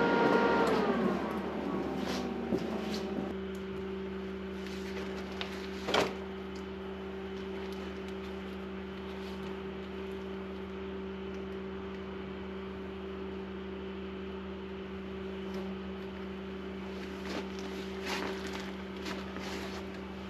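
A machine's motor winding down from a higher pitch to a lower steady hum over the first three seconds, then running steadily at that lower speed. One sharp clack about six seconds in, and a few light knocks near the end.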